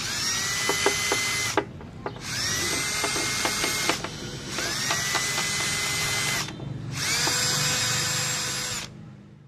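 The motor of a homemade electric tape-wrapping tool for electrical wire, run four times in short bursts. Each burst is a whine that rises as the motor spins up, then holds steady for a second or two before it stops, with a few light knocks during the runs.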